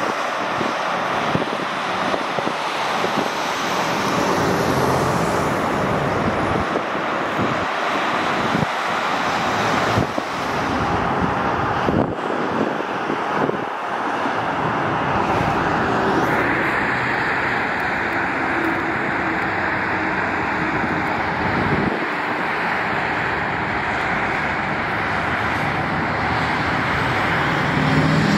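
Steady highway traffic: a continuous wash of cars and trucks passing on a multi-lane road.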